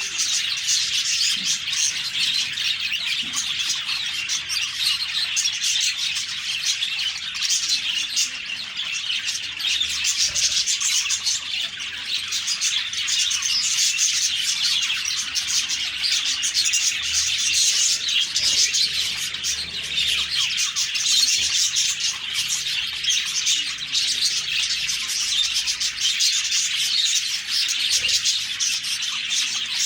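A flock of budgerigars chirping and chattering, many birds calling over one another without a break.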